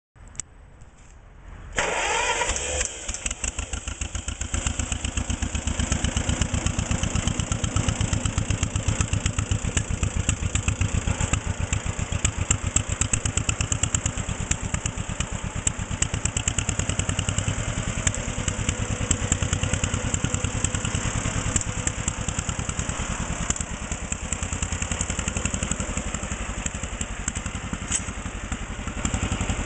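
John Deere 40T tractor's two-cylinder gasoline engine starting up about two seconds in, then idling steadily with an even, rapid putt.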